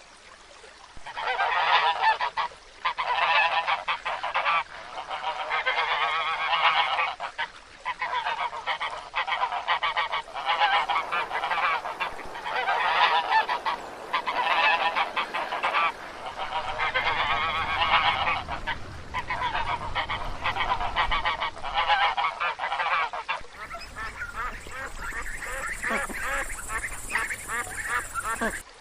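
Domestic white geese honking in long runs of rapid calls, with short breaks between bouts. A low rumble joins in about halfway through.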